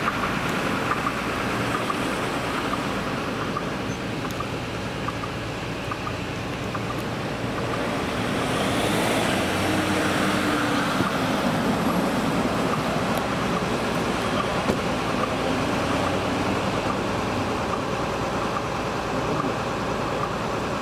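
An ambulance driving past on the road: engine and tyre noise that swells as it passes close, about nine seconds in, then carries on as it drives away.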